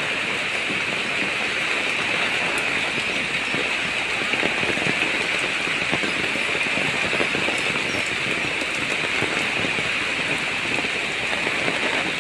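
Heavy typhoon rain falling steadily, an even, unbroken hiss.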